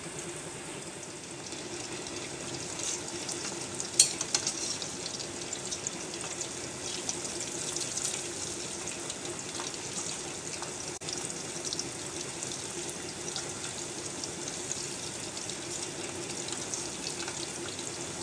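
Marinated chicken wings deep-frying in hot oil in a karahi: a steady sizzle with scattered small crackles and pops, the sharpest about four seconds in. A faint low hum runs underneath.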